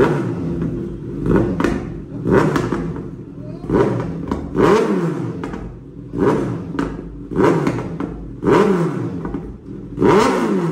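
Kawasaki Z900's inline-four engine, fitted with a full-system Arrow exhaust, blipped repeatedly on the stand: about nine quick revs, each rising sharply and falling back to idle, roughly one a second.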